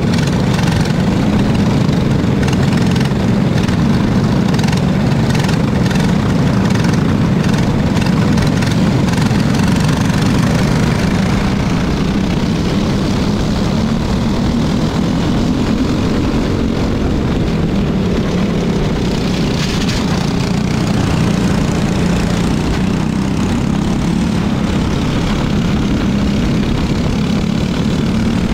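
Tillotson 212 single-cylinder four-stroke kart engine running hard at race pace, heard onboard, with the pitch rising and falling as the kart speeds up and slows for corners. Other kart engines run close by in the pack.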